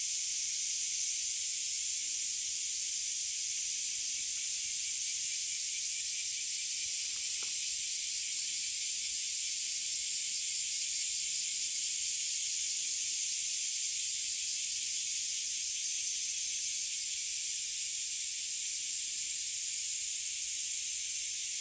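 A steady high-pitched hiss that holds at one level throughout.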